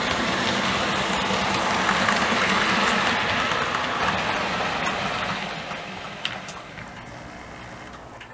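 OO gauge model Class 73 locomotive and its coaches running past on the track, a steady rolling whirr of motor and wheels with a few sharp clicks. It is loudest a couple of seconds in and fades away over the second half as the train moves off.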